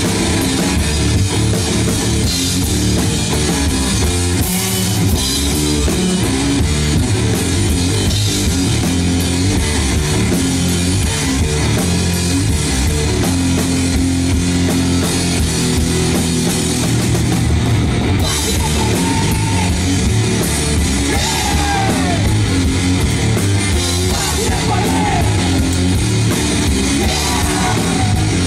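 Rock played loud and without a break on electric guitar and drum kit, the drums driving a steady beat under distorted guitar.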